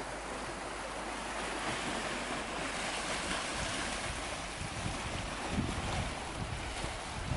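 Small waves on Lake Baikal washing against a rocky shore as a steady hiss. Wind gusts rumble on the microphone from about three seconds in.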